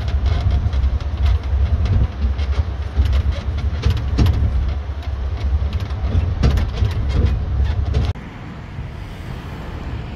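Land train carriage in motion: a steady low rumble of the engine and running gear with frequent rattles and clicks from the carriage. About eight seconds in it cuts off suddenly to a much quieter outdoor background hiss.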